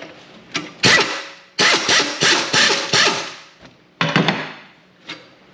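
Pneumatic impact wrench hammering in several short bursts, the longest about a second and a half, working a stubborn suspension bolt loose.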